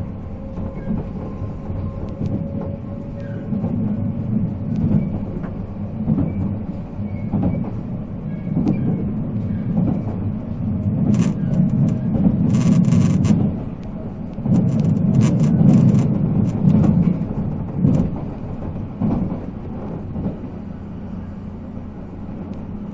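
Running noise inside a JNR 485 series electric train: a steady low rumble of wheels and MT54 traction motors, with scattered sharp clicks and clatter from the rails, loudest in the middle.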